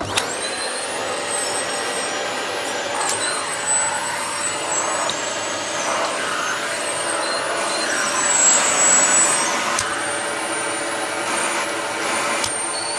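Dyson vacuum cleaner switched on and running: a steady loud rushing of air with a high motor whine that wavers in pitch.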